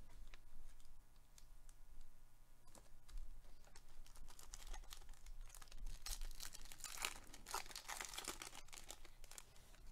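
Silver foil wrapper of a 2021 Topps Update Series trading-card pack crinkling and being torn open by gloved hands: faint rustling and crackling that gets busier about six seconds in.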